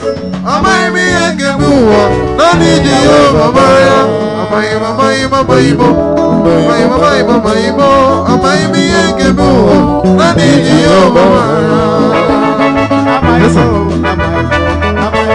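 Live band praise music: a Stratocaster-style electric guitar playing over keyboard and bass.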